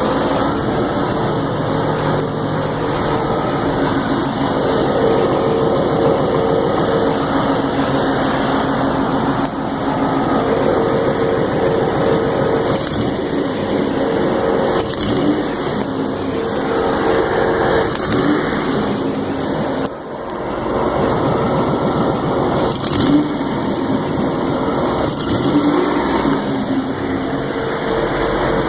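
Corvette ZR1's LT5 32-valve DOHC V8 engine running, with a tick noise that the owner reports comes on under throttle or engine load. Several brief rises in the higher sound come through during the run.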